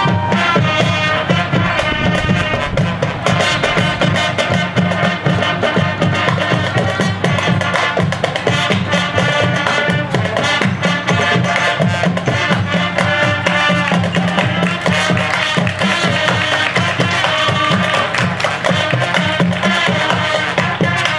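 High school marching band playing live: winds and brass together over fast, busy percussion from the drum line.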